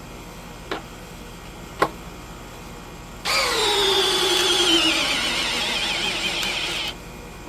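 Milwaukee M12 3404-20 hammer drill in speed 2 drill mode on a 4 amp-hour battery, running for about three and a half seconds under load. Its whine falls steadily in pitch as the motor slows, then cuts off suddenly. Two light clicks come before it starts.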